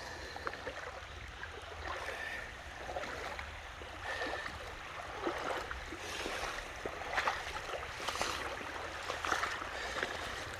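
Shallow creek water running, with irregular splashes and knocks of footsteps wading through it. The splashing gets busier about halfway through.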